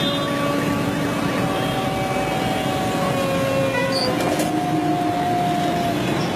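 Caterpillar skid-steer loader's diesel engine running, over street traffic noise, with steady whining tones that shift in pitch a few times.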